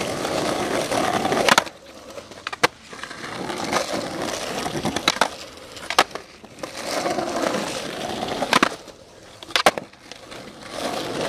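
Skateboard wheels rolling over concrete, broken by about half a dozen sharp wooden clacks of the board hitting the ground, with a new roll starting after each.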